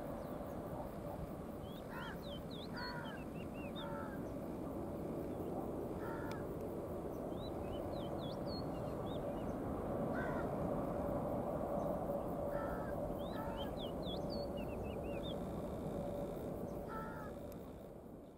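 Steady distant jet roar of a Boeing 777-300 climbing away after takeoff, with crows cawing now and then and smaller birds chirping in quick bursts; the sound fades out near the end.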